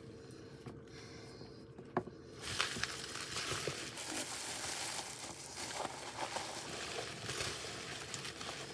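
Packing material crinkling and rustling as a box is unpacked by hand, beginning about two and a half seconds in after a single click.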